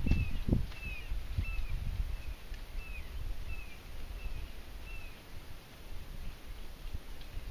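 A bird calling: about eight short, clear chirps, roughly two a second, that stop about five seconds in. A few soft low thumps come near the start, over a low rumble.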